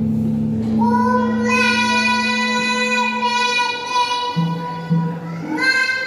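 A child singing Javanese tembang verse, holding one long, steady note before moving to a new phrase near the end, over musical accompaniment with low bass notes.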